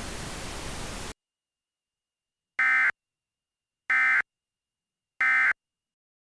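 A steady static hiss cuts off about a second in. Then come three short, identical bursts of Emergency Alert System digital data tones, the SAME end-of-message code, each about a third of a second long and about a second and a bit apart, marking the end of the alert.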